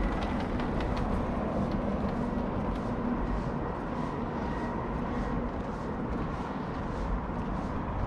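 Footsteps of someone walking on the footbridge, regular, about three a second, over a steady low rumble of outdoor noise.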